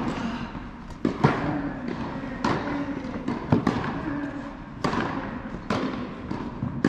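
Tennis balls being struck and bouncing, sharp pops that echo around a large indoor tennis hall, about nine in quick, irregular succession.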